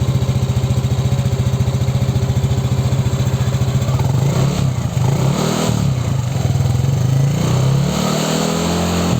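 Yamaha NMAX V2 scooter's 155 cc single-cylinder four-stroke engine breathing through a TSMP aftermarket exhaust, idling with an even pulse, then revved up and let back down twice from about four seconds in.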